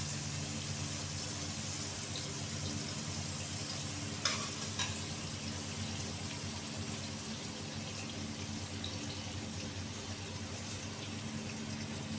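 Steady kitchen background hiss with a low hum underneath, and two light clicks about four and five seconds in.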